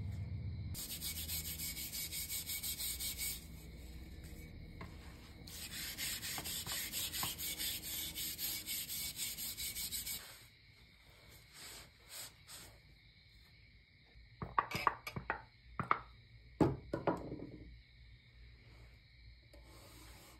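Steel wool scrubbing a rusty steel blade in a tray of liquid: quick back-and-forth strokes, about three a second, with a pause between. Later comes a cluster of sharp knocks as the blade is handled and set on the wooden workbench, then faint wiping.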